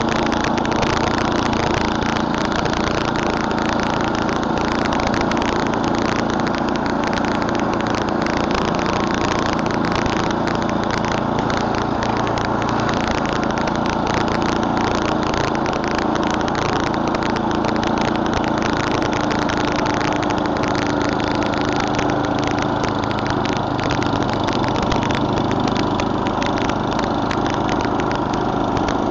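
Murray Select snowblower's 11 hp Tecumseh engine running steadily.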